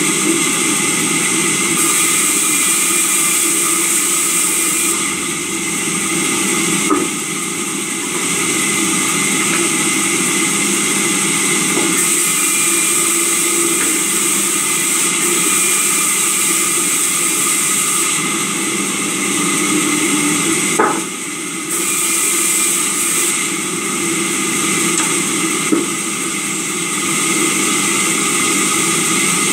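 Sawmill saw running steadily while timber is pushed through it on the saw bench, its sound shifting a little every few seconds as the cut goes on, with a few short knocks of wood about 7, 21 and 26 seconds in.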